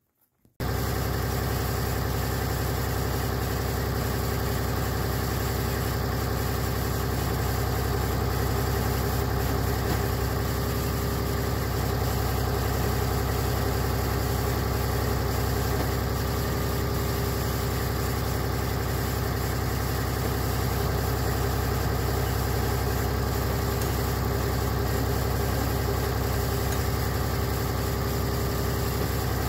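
An engine idling steadily with an even, unchanging note, coming in abruptly about half a second in.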